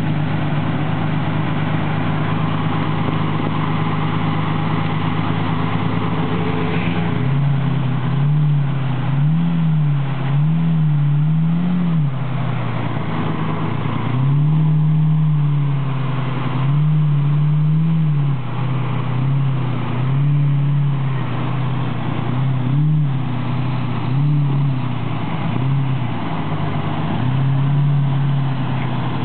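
Lamborghini Murciélago's V12 engine idling steadily, then blipped over and over from about seven seconds in, with short revs rising and falling every second or two.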